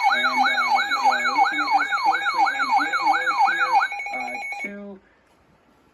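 Electronic alert siren: a fast, repeating yelping sweep, about three a second, over steady tones and a lower stepped note pattern. It cuts off just before four seconds in, then a few short tones follow before it goes quiet.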